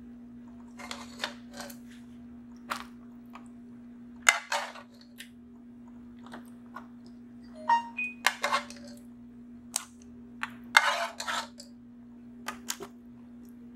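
Irregular clinks, taps and short scrapes of a utensil and sauce against a disposable aluminium foil tray while meat sauce is spread over lasagna sheets, with a steady low hum underneath.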